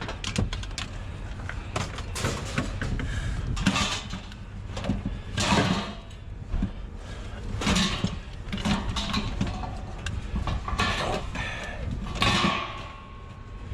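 Scrap metal being handled and loaded: irregular metallic knocks, clanks and scrapes, with a few louder bangs spread through, over a steady low rumble.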